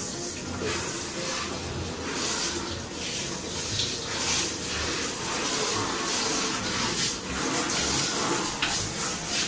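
Water spraying from a handheld shower head and splashing onto a plastic toy ride-on car in a bathtub.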